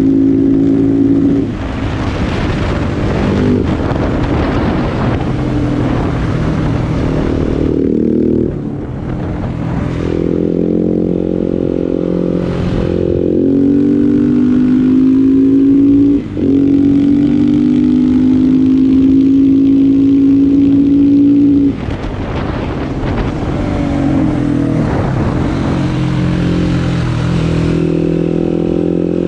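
KTM 690 SMC R single-cylinder engine through a LeoVince exhaust, on the move: it pulls under throttle, eases off and rises in pitch again. It holds a steady high note for several seconds, then shuts off abruptly and builds again near the end.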